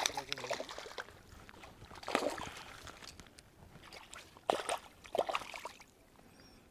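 Water splashing and sloshing in a few short bursts, the loudest about two seconds in and two close together near the end.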